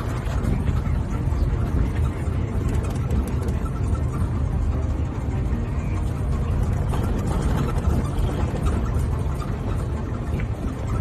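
Golf cart driving along a paved road: a steady low rumble.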